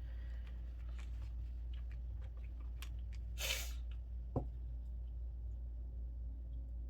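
Tarot cards being handled, with faint light clicks and rustles, then one breath through the nose about three and a half seconds in and a sharp tick just after. A steady low hum runs underneath.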